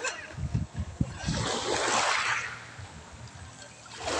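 Small waves washing in over a pebble shore: a hissing swell of water about a second in that dies away, and another starting near the end. A few low thumps come in the first second.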